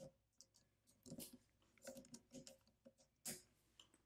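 Near silence broken by faint, scattered clicks and small knocks from the Pilot P-1 pinwheel mechanical calculator's metal mechanism as it is handled, with the loudest click about three seconds in.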